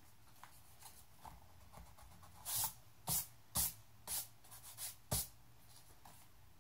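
Pencil scratching across paper in a run of about seven quick drawing strokes, after a few faint light taps of the pencil.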